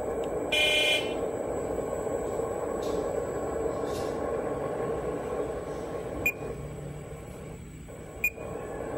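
Sound effects of a JDM remote-control model excavator: steady engine-like running noise, a short loud beep about half a second in, then two sharp clicks about two seconds apart near the end.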